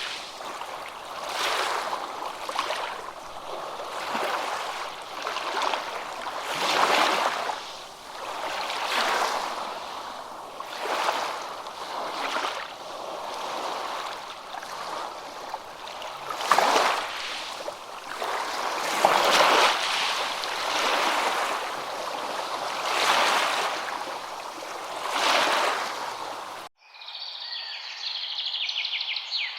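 Small waves washing in, each swell of water noise rising and falling every second or two. Near the end it cuts off suddenly to a passage of chirping birds.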